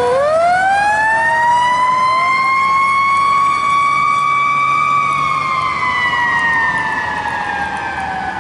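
Fire ladder truck's siren winding up quickly, holding a high pitch for a few seconds, then winding slowly down toward the end.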